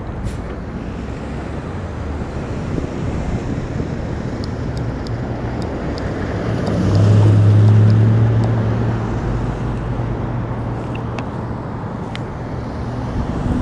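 Road traffic passing through an intersection: steady engine and tyre noise, with a box truck's engine droning loudest from about six to ten seconds in.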